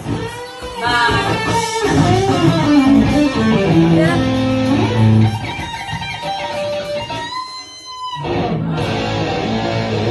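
Electric guitar played through an amplifier: fast lead runs of single notes mixed with held notes, with a thinner held note about seven and a half seconds in before the playing picks up again.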